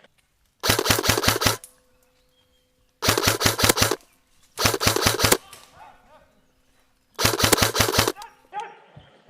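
Airsoft electric rifle firing four full-auto bursts of about a second each, rapid evenly spaced shots with short pauses between bursts.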